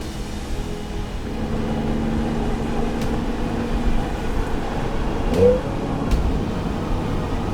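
Audi S4 B8's supercharged 3.0-litre V6 running at light throttle while the car drives on, after a rev has eased off, with steady road and tyre rumble. A faint steady tone sits under it for a few seconds, and there are a few faint clicks.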